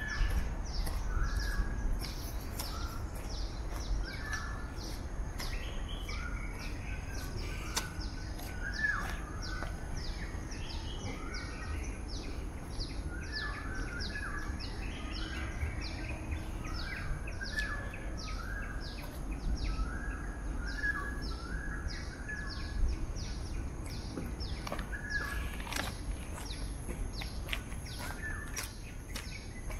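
Birds calling with short, repeated chirps. Behind them runs an even, high-pitched pulsing about twice a second, over a steady low rumble.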